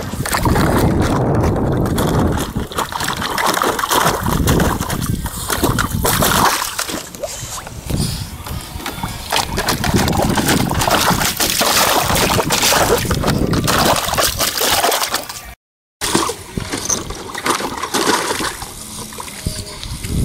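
Boston terrier pawing at the water in a plastic kiddie pool: irregular sloshing and splashing. The sound breaks off for a moment about three-quarters of the way through.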